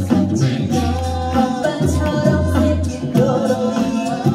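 A five-voice a cappella group of mixed male and female voices singing in close harmony, with a deep sung bass line under the melody.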